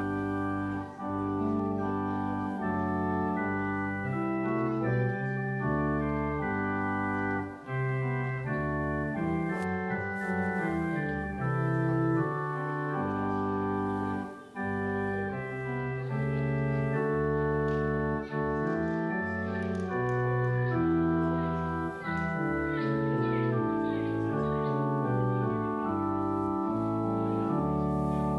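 Church organ playing the postlude at the close of the service: full held chords that change about once a second, with short breaks between phrases.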